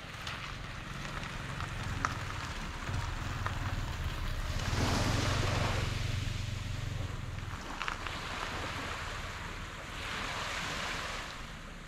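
Sea waves washing in twice, each a swell of rushing noise, over gusty wind buffeting the microphone with a low rumble that drops away about two-thirds of the way through.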